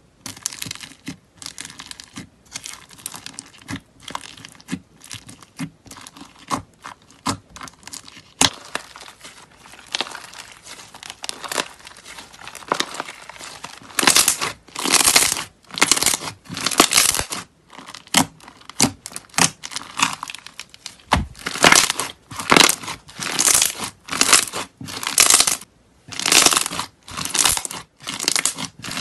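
Hands playing with slime: squeezing and pressing a slime with crunchy add-ins, then folding and squishing a soft, fluffy orange slime, with crackling and popping of trapped air. The sounds come as short crackly squelches that get louder about halfway through and then repeat roughly once a second.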